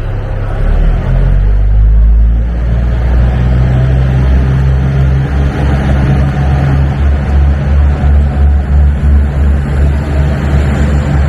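KiHa 75 diesel multiple unit pulling out of the platform, its diesel engines under power. It is a loud, low engine drone that swells about a second in and then pulses steadily as the train gathers speed.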